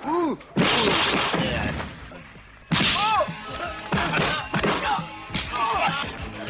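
Movie brawl punch sound effects: hard whacks and thuds dubbed over the film's music, with sharp hits at the start, about half a second in and near three seconds.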